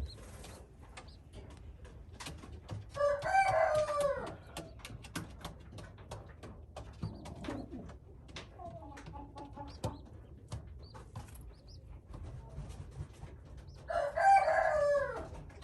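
A young rooster crowing twice, each crow short, about a second long and falling in pitch at the end, about eleven seconds apart. A softer call comes between them, with scattered light clicks and taps throughout.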